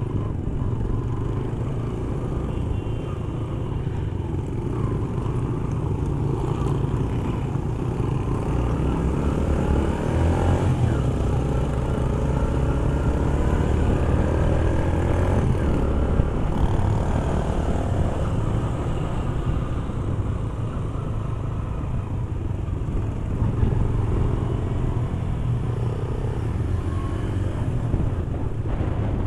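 Motorcycle engine running while riding a rough gravel track, heard from on the bike over a steady rumble of riding noise; the engine note rises and falls with the throttle around the middle.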